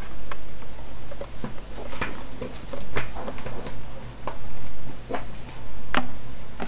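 Irregular light clicks and knocks from a small handheld mini PC and the camera being handled and touched, over a steady low electrical hum.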